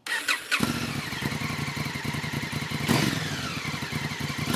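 A brief static-like hiss, then a motorcycle engine running with rapid, even firing pulses. It surges briefly about three seconds in and again near the end.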